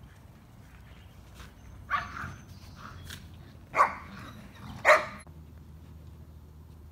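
A dog barks three short times during play, the barks coming about a second or two apart.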